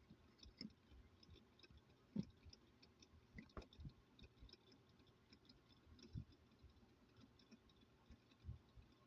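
Faint, scattered clicks and taps of a small plastic charger and tools being handled while it is taken apart, with a couple of sharper taps about two and three and a half seconds in.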